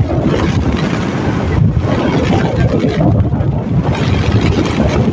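Strong, gusty storm wind buffeting the phone's microphone, over the wash of heavy surf.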